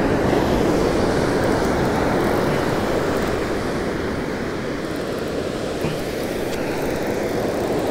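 Surf washing onto a sandy beach, mixed with wind on the microphone: a steady rushing noise.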